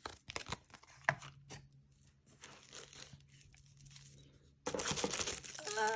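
Packaging being handled while unboxing: a few light clicks and soft rustles, then about two-thirds of the way in, loud sustained crinkling and tearing of wrapping.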